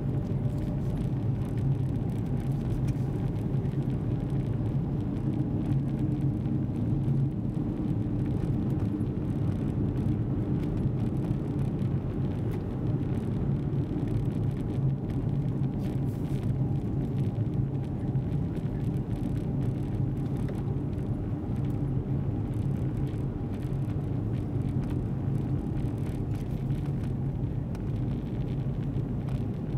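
A car driving at steady speed, heard from inside the cabin: an even low hum of engine and tyres on the road, with no change in pace.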